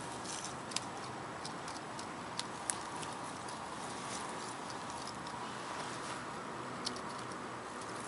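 Steady outdoor background noise with light rustling and a few sharp crackles of dry grass and leaves as a cat rolls and paws on the ground.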